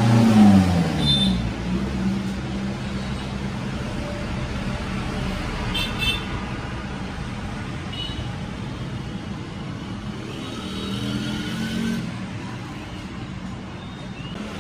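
Road traffic: vehicle engines running steadily, with one vehicle passing about a second in, its pitch falling as it goes by.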